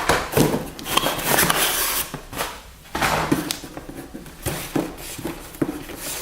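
Carded Hot Wheels cars in plastic blister packs being handled and set down, with a run of plastic and cardboard rustling, scraping and sharp clicks.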